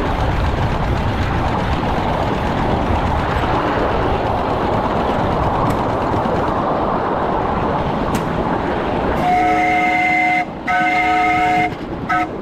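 A 2-6-0 live-steam locomotive working upgrade, its running noise steady, then its steam whistle sounds a chord of several notes: two long blasts about three-quarters of the way in, then short toots near the end.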